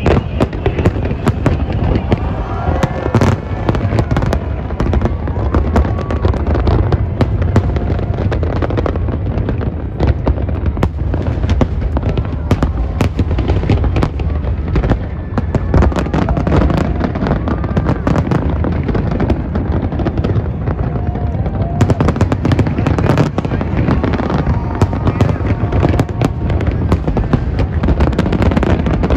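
A dense, unbroken barrage of professional aerial firework shells bursting: rapid overlapping cracks and bangs over a steady low rumble of booms.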